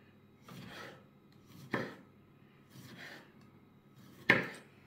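Large kitchen knife slicing cherry tomatoes on a wooden cutting board: soft slicing sounds, with two sharp knocks of the blade on the board, about two seconds in and near the end, the second the louder.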